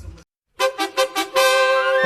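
Background music: a thudding beat cuts off, a split second of silence follows, then a new horn-like tune begins with a few short stabbed notes and settles into a long held note.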